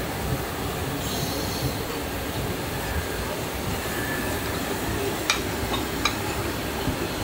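Steady low rumbling restaurant-kitchen background noise, with a couple of sharp clinks near the end as plates of fried shrimp are set down on a serving tray.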